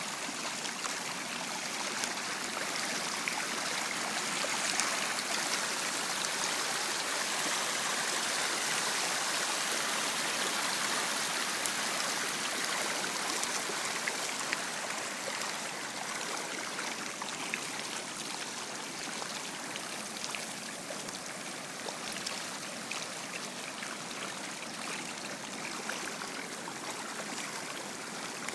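A dense crowd of farmed trout thrashing at the surface, a continuous churning splash made of many small splashes, as the hungry fish crowd together.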